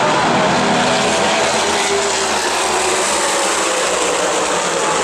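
Engines of a pack of USAC Silver Crown open-wheel race cars racing past on the oval, several engine notes overlapping, their pitches rising and falling as the cars go by.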